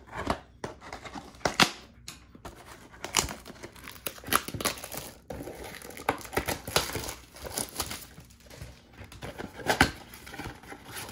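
Plastic and cardboard packaging of a trading-card box crinkling and tearing as the box is unwrapped and opened. The rustling runs throughout, with several sharp snaps mixed in.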